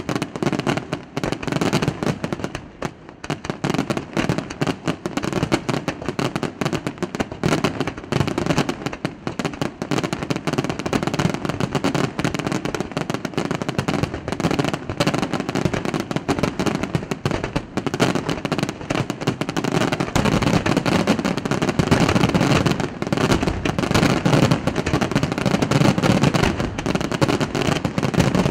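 Aerial firework shells of a pyrotechnic display, bursting in rapid overlapping succession. The bangs get denser and louder about two-thirds of the way through.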